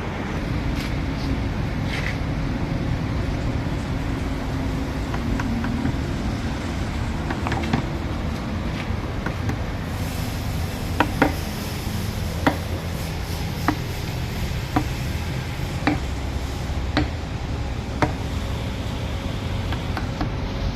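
A steady low rumble throughout. From about halfway, a run of sharp single knocks at an even pace of about one a second.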